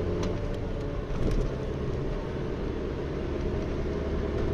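Studded Rosava winter tyres droning on asphalt, heard from inside the car's cabin while driving, mixed with engine and road noise. It is a steady low hum, with a few short clicks in the first second and a half. The drone is the loud tyre noise the owner complains of from these studded tyres.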